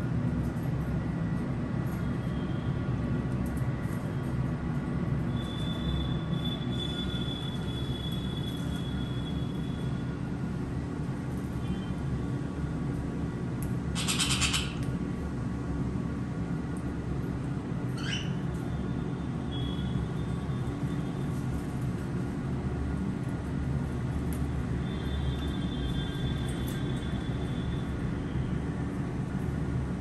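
Pet conures calling: one loud, harsh squawk about halfway through and a quick falling call a few seconds later, over a steady low hum.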